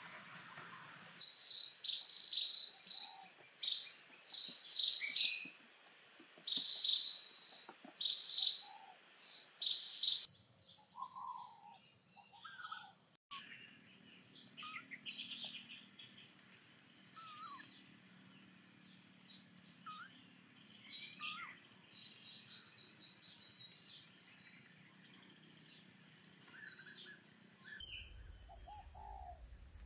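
Birds chirping and singing in repeated loud bursts for about the first ten seconds, then fainter scattered chirps. A steady high-pitched insect drone comes in around ten seconds and again near the end.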